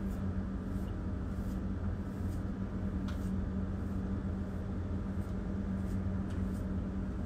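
Electric hair clippers buzzing steadily as they shave the last stubble close to a scalp.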